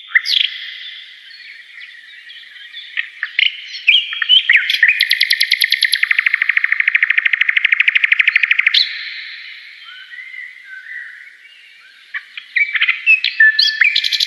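Songbirds singing: scattered chirps and whistles, with a long, fast trill lasting about four seconds in the middle.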